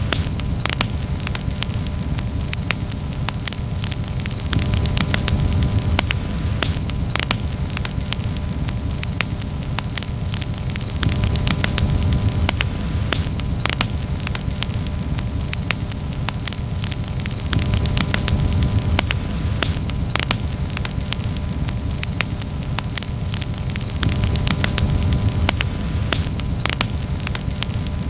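Campfire crackling: frequent sharp pops and snaps over a low, steady rumble that slowly swells and eases.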